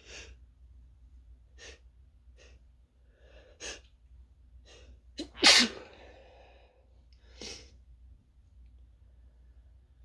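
A person sneezes once, loudly, about halfway through, after several short, sharp breaths in; another quick breath follows a couple of seconds later. The sneezer thinks they are coming down with something.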